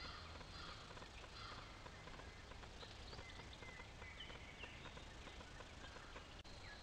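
Faint birdsong outdoors: scattered short chirps and whistles from several birds over a steady background hiss.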